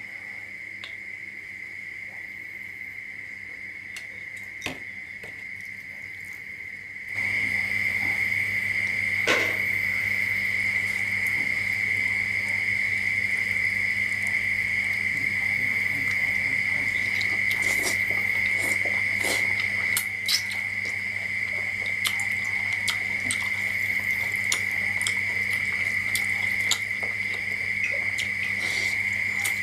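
A steady high-pitched drone, louder from about seven seconds in where a low hum joins it, with scattered soft clicks and smacks of someone eating noodles by hand.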